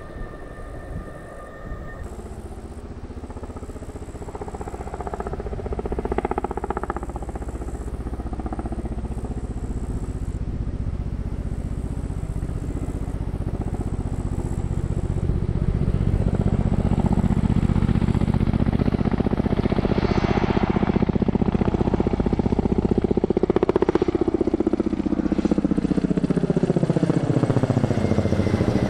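Aircraft passing overhead: its engine noise builds slowly over about fifteen seconds, stays loud, and sweeps down in pitch near the end as it goes by.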